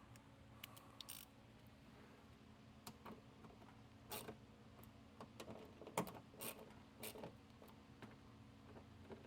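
Faint, irregular clicks and short scrapes of hand tools and screws being worked on a car door during reassembly.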